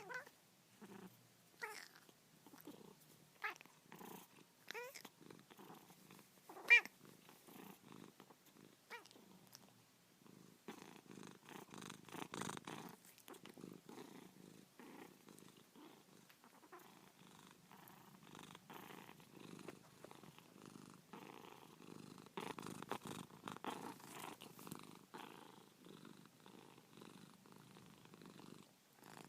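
Domestic cat meowing in short calls every second or two, about six times, the loudest about seven seconds in. After about ten seconds it settles into steady, continuous purring.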